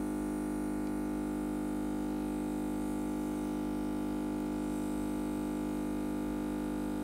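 A steady, unchanging hum with many overtones.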